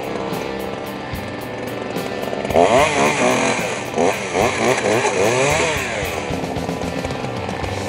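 Rock music with heavily distorted electric guitar over a steady drum beat. A bending, wailing guitar lead comes in about two and a half seconds in and fades near six seconds.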